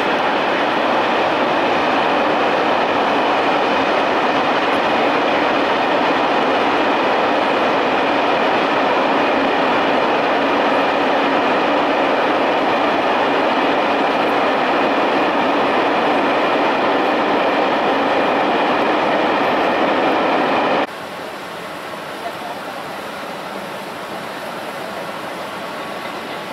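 A freight train rolling past: a steady rumble and hiss of wheels and wagons. About three quarters of the way through it cuts suddenly to a quieter, steadier train sound.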